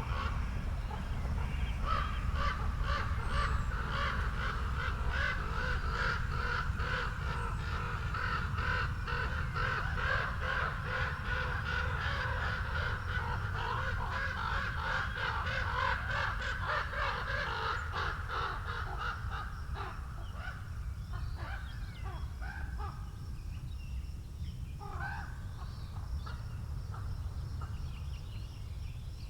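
Birds calling in a dense, rapid run of repeated calls that thins out about two-thirds of the way through, leaving a couple of single calls near the end. Steady low wind rumble on the microphone underneath.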